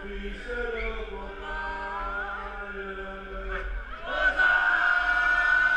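Choral music: many voices singing long held notes, swelling louder about four seconds in.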